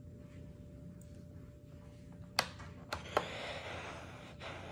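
Steam iron working on fabric: three sharp clicks close together about two and a half to three seconds in, then a steady hiss.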